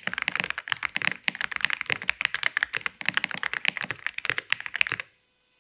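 Fast, continuous typing on an Aula F87 Pro mechanical keyboard: rapid keystroke clacks that stop abruptly about five seconds in.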